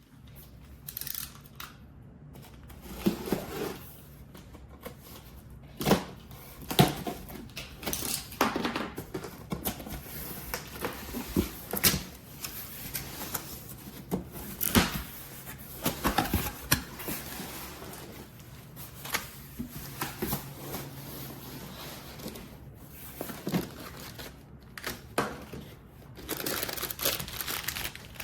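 Irregular clicks, taps and knocks with brief rustles, as of objects being handled.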